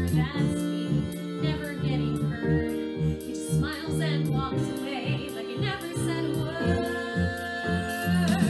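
A woman singing a musical-theatre song over instrumental accompaniment, with held notes and vibrato.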